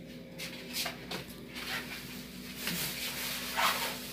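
Several short rustling and scraping handling sounds, the loudest near the end, over a steady low hum in a kitchen.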